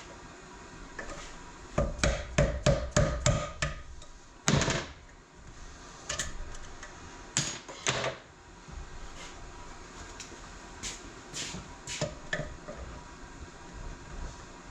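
Hand tools tapping and metal transmission parts clanking: a quick run of about seven taps starting about two seconds in, then scattered single knocks.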